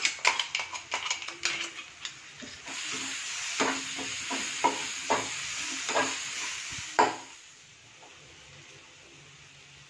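A metal spoon clinks against a small steel cup as ginger-garlic paste is scraped out. Then the paste and onions sizzle in hot oil in a kadai while a metal slotted spoon scrapes and knocks against the pan during stirring. The sizzling cuts off sharply about seven seconds in.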